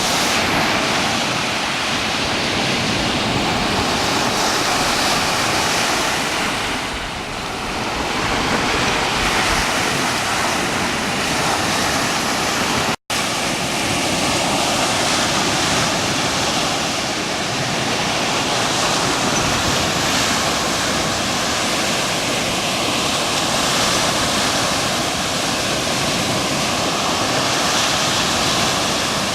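Wind buffeting the microphone over the rush and splash of waves on choppy water, a loud steady noise with no engine or voice in it. It drops out for an instant about thirteen seconds in.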